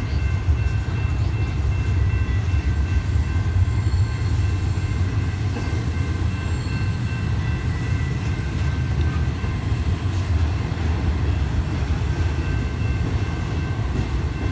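Double-stack intermodal freight train's well cars rolling past: a steady, loud low rumble of wheels on rail, with faint high-pitched tones coming and going.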